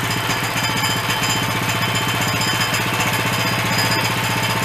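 Woodland HM122 sawmill's small gas engine running steadily at a constant speed, with a fast, even rattling beat and a steady hum underneath.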